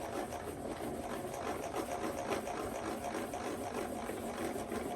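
Table saw blade-height handwheel being cranked, the elevation gearing turning with a steady, rapid ticking rattle as the blade is raised to full height.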